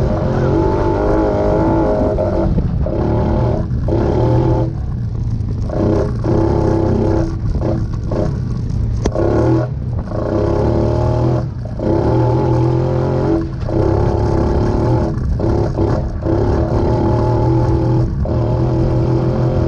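Honda Foreman ATV's single-cylinder four-stroke engine running under varying throttle, dipping briefly and picking back up every second or two.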